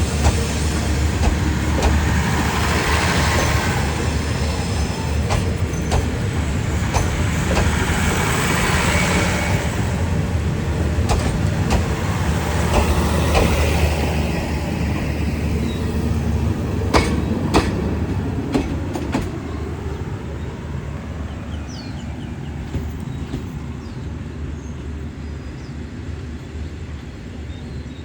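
Diesel-hauled passenger train rumbling along the platform, with sharp clacks of wheels over rail joints, the rumble fading away over the last third.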